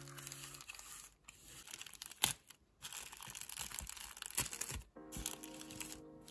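Thin plastic packaging bag crinkling and tearing as it is pulled open by hand, with one sharp, louder tear about two seconds in. Soft lofi background music plays at the start and returns near the end.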